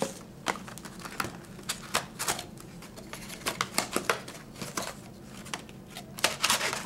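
Hands handling a cardboard trading-card box: irregular light clicks and taps as the lid is opened and the foil packs inside are touched, with a quick cluster of taps near the end.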